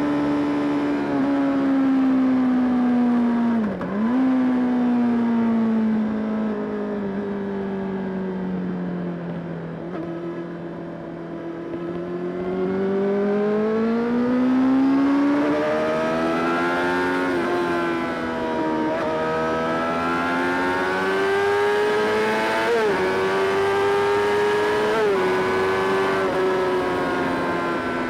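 Honda CBR600RR's inline-four engine under way. Its note falls slowly over the first ten seconds with a brief dip near four seconds, then rises again as it accelerates, with several short dips in pitch later on.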